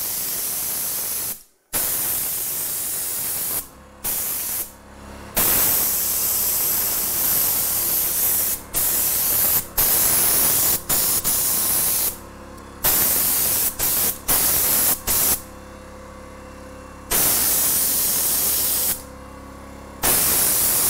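Husky gravity-feed HVLP spray gun hissing as it sprays paint, in repeated bursts of a second to several seconds as the trigger is pulled and released, with short breaks between.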